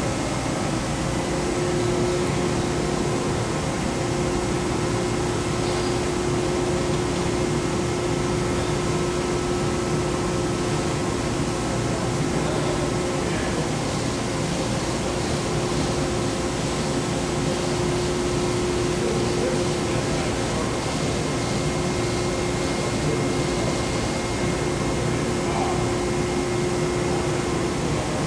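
Komo VR510 Fusion 5-axis CNC router running: a steady mechanical hum and rush with a constant whine held at one pitch throughout.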